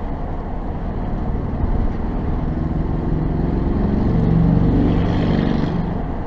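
Steady road and tyre rumble inside a moving car, with another vehicle's engine note building up, peaking just past the middle and fading as it passes close by.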